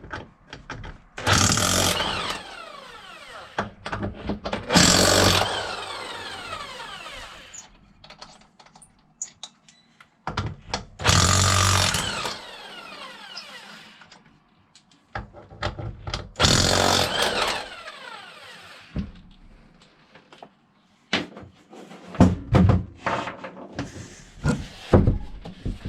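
A handheld power tool, such as a cordless drill or impact driver, run in four short bursts, its whine falling away as it spins down after each one. Near the end come a quick run of metal clicks and knocks.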